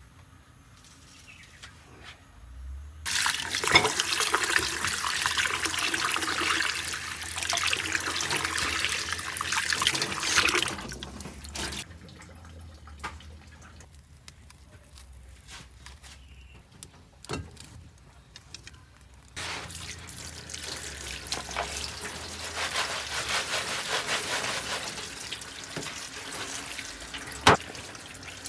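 Running water pouring into a plastic basin and splashing as something is washed in it. There is a steady rushing noise in two long stretches with a lull between them, and a sharp click near the end.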